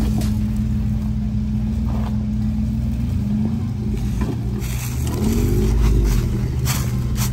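Jeep Wrangler JK engine running at low crawling speed as it climbs through deep ruts, its note rising briefly about five seconds in as it is given more throttle. A couple of short crunching noises come around five and seven seconds in.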